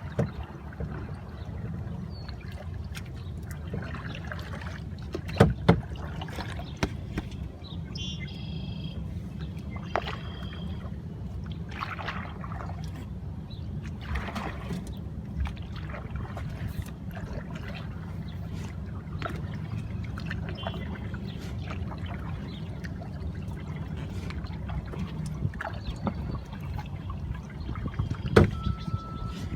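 Kayak being paddled on a river: paddle strokes splashing and water trickling off the blades, with scattered sharp knocks, over a steady low rumble.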